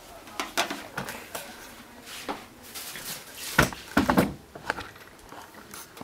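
Kitchen handling noises: scattered clicks and knocks, with two louder knocks about three and a half and four seconds in.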